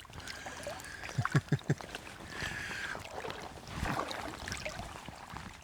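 Water sloshing and splashing close by, with a few sharp knocks about a second in.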